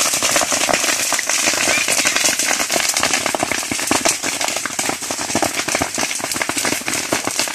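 Brush fire burning through dry grass and vegetation, crackling with a dense, steady run of sharp pops.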